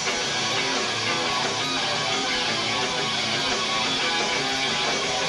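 Live hard rock/punk band playing, with strummed electric guitar to the fore.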